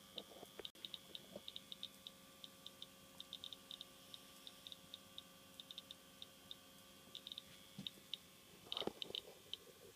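Irregular, sharp clicks from a radiation meter, several a second at random intervals, over a faint steady hum from the running X-ray set. The clicks count the radiation from the switched-on X-ray tube. A brief louder rustle comes near the end.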